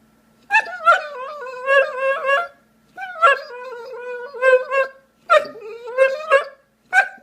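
A dog whining and yowling in drawn-out, wavering calls, four bouts with short pauses between them.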